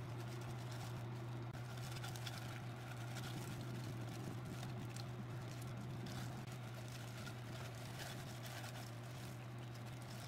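A steady low hum with faint, irregular rustling and squishing from plastic-gloved hands pressing rice into fried tofu pockets.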